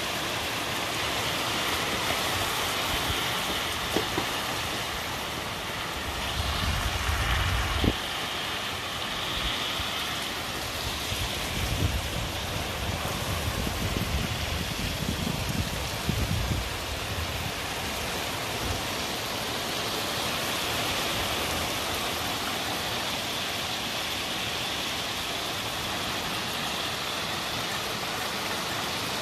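Heavy rain pouring down steadily, a dense even hiss. Low rumbles swell and fade twice, about a quarter of the way in and again around the middle.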